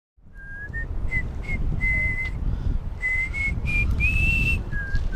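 A person whistling a melody, clear single notes stepping up and down over a low rumble of background noise.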